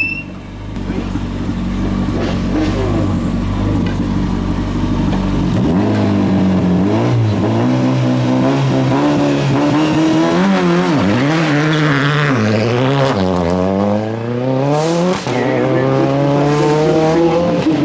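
Hillclimb race car engine running steadily on the start line. About five seconds in it launches under launch control, and the engine note climbs and drops back with each of several quick upshifts as the car accelerates away.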